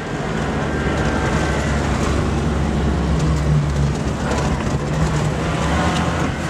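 Vehicle engine running while driving over rough dirt ground, its pitch rising about three seconds in and then easing, over steady tyre and rattle noise.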